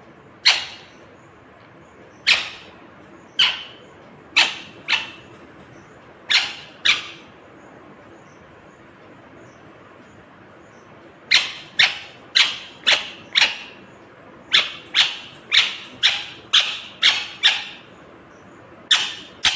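Indian ringneck parakeet calling with short, shrill squawks: scattered single calls, a pause of a few seconds, then a rapid series of about two calls a second, with another series starting near the end.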